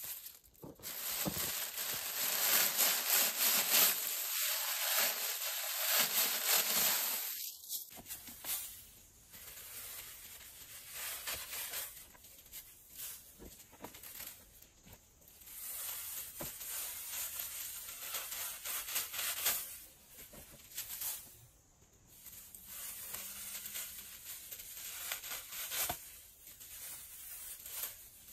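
Rough rubbing and scraping noise, steady and loudest for the first eight seconds, then coming in irregular short strokes.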